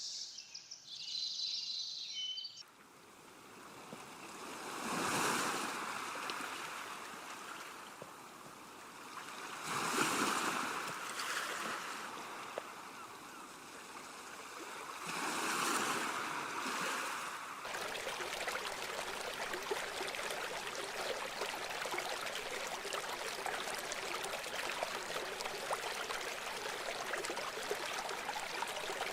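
Birds chirping briefly, then calm sea waves washing ashore in three slow swells about five seconds apart. From about eighteen seconds in, a brook babbles steadily.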